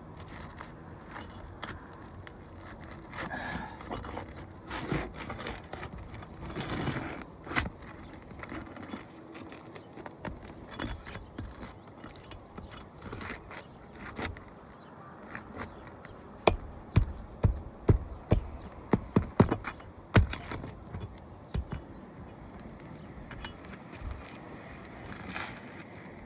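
Pry bar scraping and clinking against asphalt shingles and roofing nails as the shingles are worked loose, with a quick run of sharp knocks in the second half.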